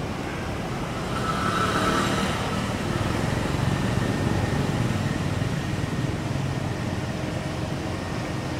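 Steady outdoor background noise: a low rumble, like distant road traffic, that swells a little about a second in and holds.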